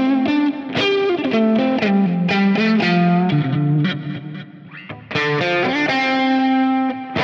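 Solo electric guitar played through an Axe-Fx III amp model with delay and a little compression: melodic single-note lines, a brief quieter dip about four seconds in, then a loud ringing chord held near the end.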